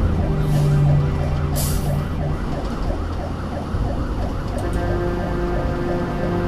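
Fire engine's electronic siren on a fast yelp, its pitch sweeping up and down several times a second, heard from inside the cab over the truck's engine running.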